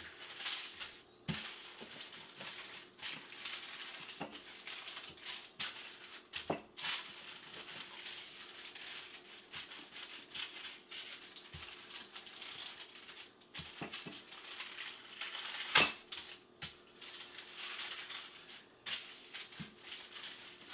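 Wooden rolling pin rolling out dough between two sheets of parchment paper on a countertop: the paper crinkles and rustles, with scattered knocks and clicks of the pin. The loudest knock comes about 16 seconds in.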